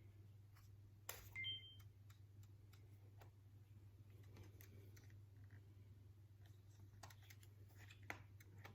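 Faint clicks of a Canon G7X Mark II compact camera's buttons being pressed, with a short two-tone electronic beep about a second and a half in, over a low steady hum.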